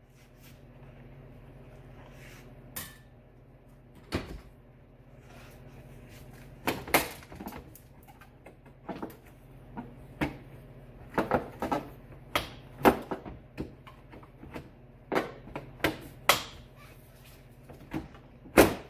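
Irregular sharp plastic clicks and knocks as a truck headlight assembly is worked out of its mounting and its wiring connectors are unplugged, over a steady low hum.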